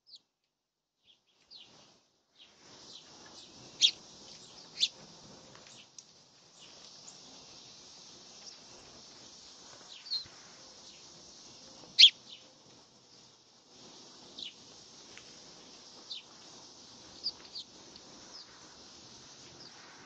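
Small songbirds chirping at a seed feeder: short, sharp single chirps scattered through, the loudest a few seconds in and again about twelve seconds in, over a faint steady hiss.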